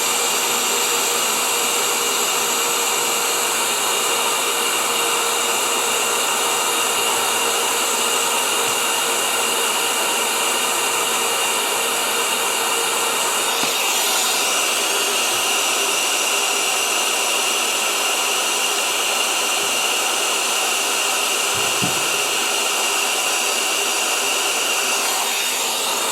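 Electric heat gun blowing steadily with a motor whine, heating heat-shrink wire couplings on the repaired cord to shrink and seal them. Its tone shifts briefly about halfway through.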